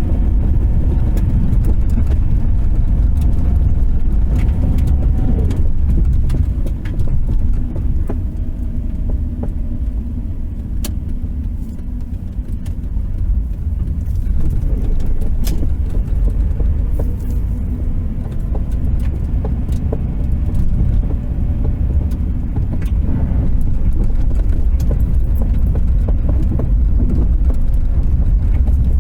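Inside a 1993 Subaru Impreza's cabin while driving slowly: a steady low rumble of road and engine, with scattered sharp pops or clicks from the middle of the dashboard. The popping is an unexplained fault that shows up only once the car is warmed up, after highway driving and then slowing down.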